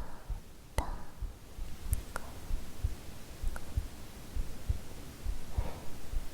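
A real human heartbeat recorded from the performer's chest: a steady run of soft, low thumps. A few faint clicks sound over it.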